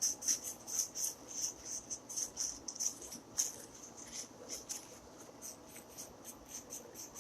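Repeated short rubbing strokes of wiping or scrubbing old thermal paste off a laptop CPU heatsink, a few strokes a second, growing fainter in the second half.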